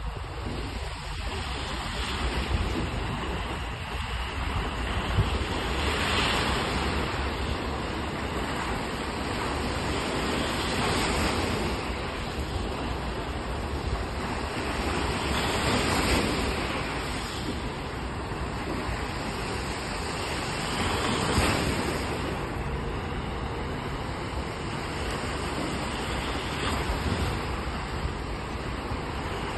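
Small sea waves breaking and washing up a sandy beach, a steady surf hiss that swells with each wave every five seconds or so.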